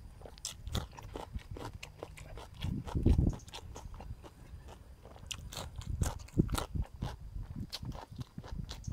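A person chewing crunchy raw vegetables: a run of crisp crunches heard close up on a clip-on microphone, with one louder low thump about three seconds in.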